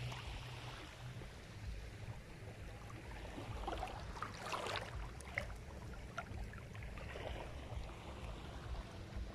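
Shallow seawater lapping, with a few light splashes about halfway through and again later, over a steady low rumble.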